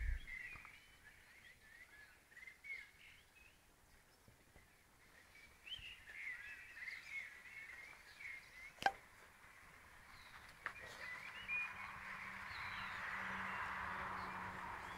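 Small birds chirping in quick, short high calls over faint outdoor ambience, with one sharp click about nine seconds in. In the second half a low steady hum with a rushing noise swells and eases off, like a distant passing engine.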